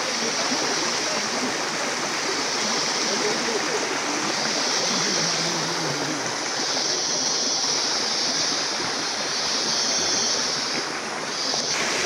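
Steady, even rush of flowing water.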